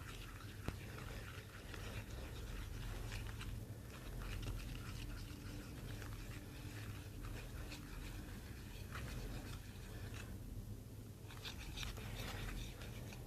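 Glue and liquid laundry detergent being stirred together in a bowl as they thicken into slime. The stirring comes as faint, irregular scraping strokes.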